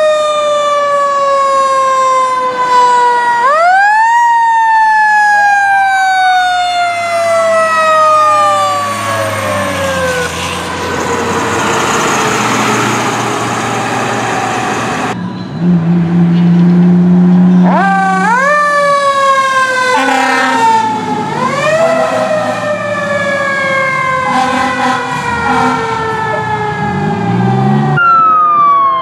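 Fire apparatus sirens wailing, each sweep rising quickly and falling away slowly, over rushing truck noise. About halfway through there is a deep, steady horn blast lasting two seconds or so.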